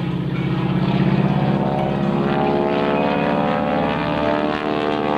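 North American T-6 Texan's 600-horsepower Pratt & Whitney R-1340 radial engine and Hamilton Standard propeller running at display power during aerobatics, a steady loud drone that peaks about a second in.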